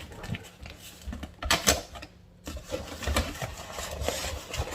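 Packaging being handled and opened by hand: a run of sharp clicks, knocks and rustles, loudest about one and a half seconds in.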